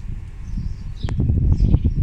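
Small birds chirping in short, high notes over a loud, uneven low rumble, with a sharp click about a second in.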